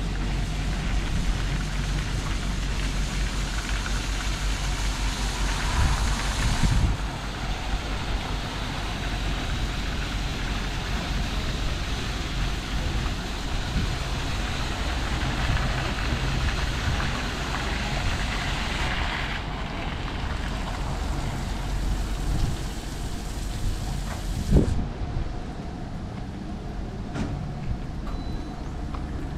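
Aquarama Stargate S10 rollover car wash in its RainFoam stage: foam and water pour onto the car as a steady hiss over the machine's low rumble. The hiss changes character twice, then cuts off with a knock about five seconds before the end.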